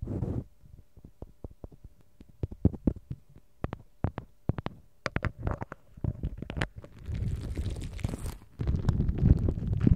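Close-miked ASMR triggers: a run of quick, irregular taps and clicks, then from about seven seconds a dense rubbing and scratching right on the microphone.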